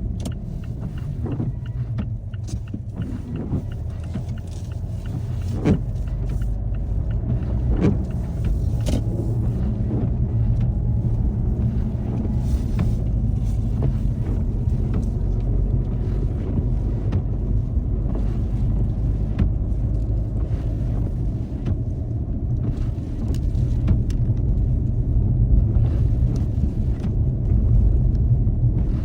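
Car driving, heard through a dashcam: a steady low rumble of road and engine noise, with scattered short clicks and knocks during the first ten seconds or so.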